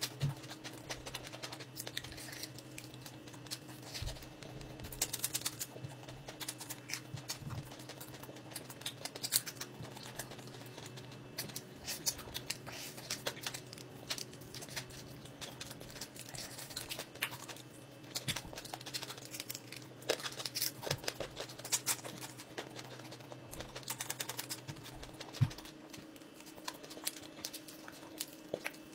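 Close-up eating sounds of fried fish picked apart and eaten by hand: a string of short lip smacks, chewing clicks and crackles of crisp skin and small bones. A low steady hum runs underneath and drops out near the end.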